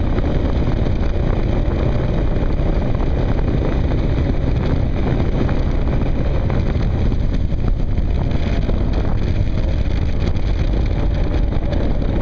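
Kawasaki KLR dual-sport motorcycle's single-cylinder engine running steadily while riding, mixed with heavy wind noise on the microphone from the open helmet vents.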